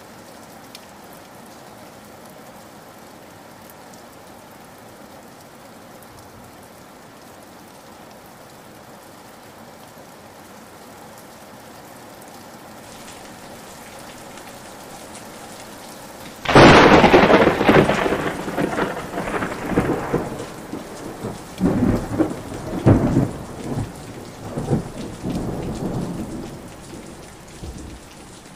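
Heavy rain falling steadily, then about sixteen seconds in a sudden loud thunderclap that rolls on in several uneven peals for about ten seconds before fading.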